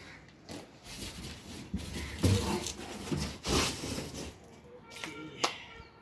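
Packaging of a new washing machine being handled and opened: irregular rustling and scraping with a few knocks, the loudest about two and a half seconds in, and a sharp click near the end.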